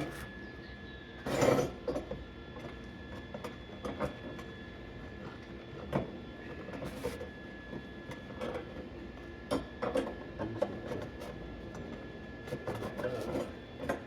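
Scattered knocks and clinks of scrap-metal parts being handled and set in place, the loudest about a second and a half in, over a steady faint high-pitched hum.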